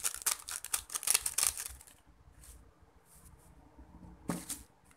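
Foil instant-noodle seasoning sachet crinkling as it is squeezed and shaken out over a plate, a dense run of crackles for about two seconds. Then a few faint rustles and a single knock near the end.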